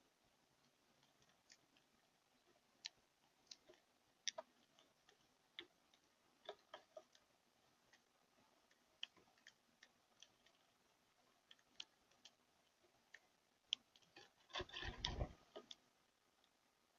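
Irregular sharp clicks and taps, a few seconds apart, over near silence. About fifteen seconds in comes a short burst of louder knocking and thumping.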